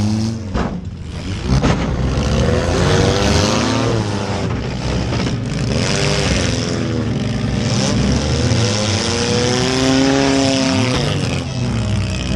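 Compact demolition derby car's engine, heard from inside the car, revving up and down repeatedly as it is driven, over heavy mechanical noise, with a few sharp bangs in the first half.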